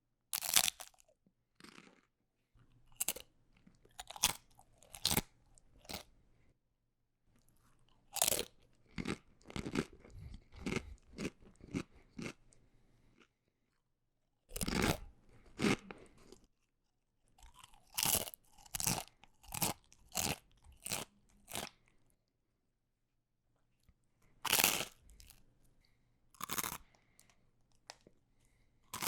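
A person biting into crunchy food and chewing it: four rounds, each opening with a loud crisp bite and followed by a run of quick crunching chews, with short silent gaps between.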